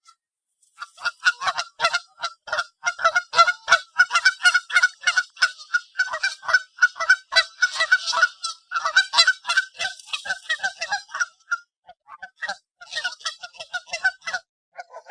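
Canada geese honking loudly, many rapid overlapping honks several a second, with a brief pause about three-quarters of the way through before the honking picks up again.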